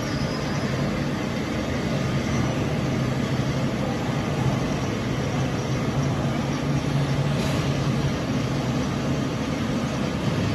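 Steady machinery noise with a low hum from an industrial robot workcell while the robot arm runs its program.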